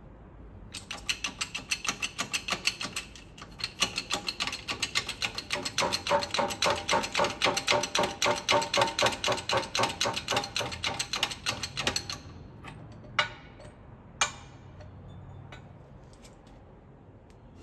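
Rapid, even metallic clicking at several clicks a second for about eleven seconds, then two sharp knocks about a second apart. The sound comes from a hydraulic shop press and bearing separator pressing the bearing off a Subaru 4EAT transmission top gear.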